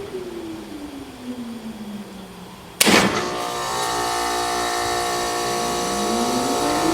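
Trane XL16 heat pump short cycling in heat mode. A motor winds down with a falling whine, a sharp loud clunk comes about three seconds in as the unit starts again, then a steady hum with a rising whine as a motor spins back up.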